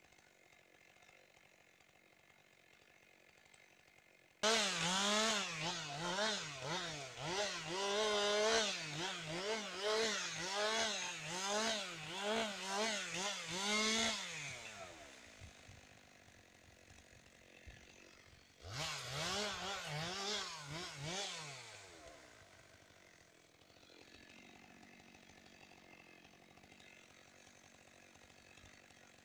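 Two-stroke chainsaw running at high revs, its pitch rising and dipping about twice a second, for roughly ten seconds before it winds down. A few seconds later it runs again briefly and falls away.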